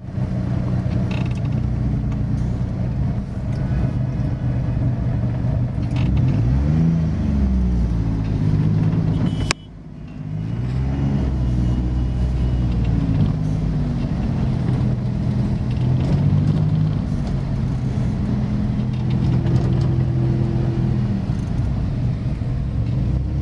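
Motor vehicle engine running, its pitch rising and falling as it revs. A sharp click and a brief drop in level come about nine and a half seconds in.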